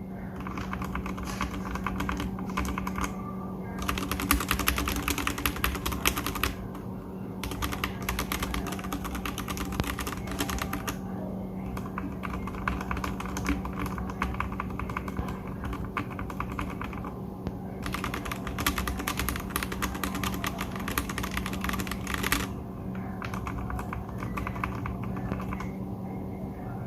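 Typing on a Royal Kludge G68 mechanical keyboard with its stock RK switches, some of them freshly lubed: runs of rapid keystrokes with quieter stretches of typing between them. The lubed keys sound softer.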